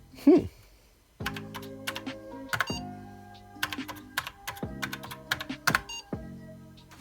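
Keys clicking on a computer keyboard, many quick presses, over background music. Near the start a brief loud sound falls steeply in pitch, followed by about a second of near quiet before the music and typing resume.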